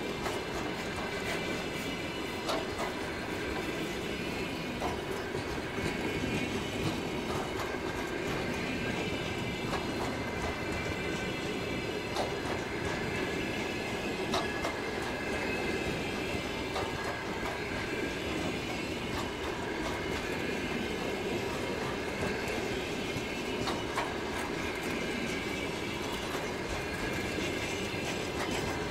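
Loaded covered hopper wagons of a departing freight train rolling past: steady rumble of the wheels, irregular clicks over the rail joints, and a faint high wheel squeal.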